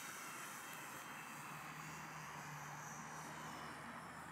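Small electric RC warbird plane flying overhead, its motor and propeller whining faintly. A steady low hum comes in about a second and a half in.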